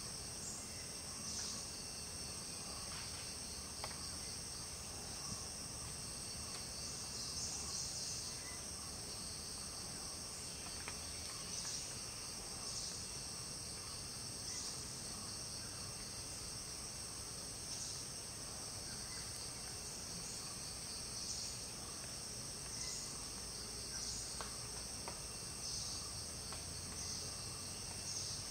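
Chorus of insects such as crickets: a steady, high-pitched shrill drone, with a louder pulse of calling every second or two.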